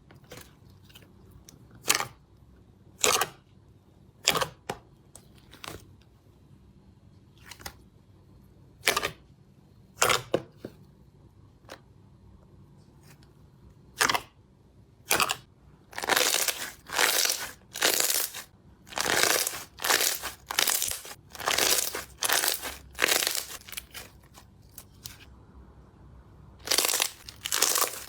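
Slime being handled and squeezed, making sharp pops and crackles: scattered single pops at first, then from about halfway a steady run of longer crackling squishes roughly once a second.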